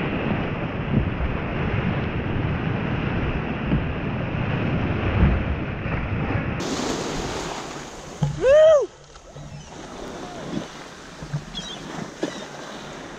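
Churning, splashing seawater as a humpback whale lunges up through the surface right beside the kayak, with wind buffeting the microphone; the rush of water eases into quieter sloshing later on. About two-thirds of the way through comes one short, loud high call that rises and falls.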